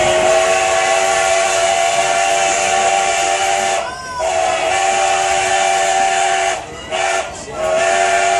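Steam locomotive's chime whistle blowing a chord of several notes: two long blasts, a short one and a long one that runs on, the pattern sounded for a grade crossing.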